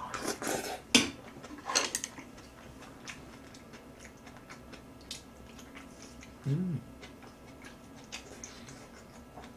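Close-up eating sounds. In the first two seconds there are slurps and mouth noises as a bite goes in. After that come small clicks of chopsticks against a stone bowl, and a short hum about six and a half seconds in.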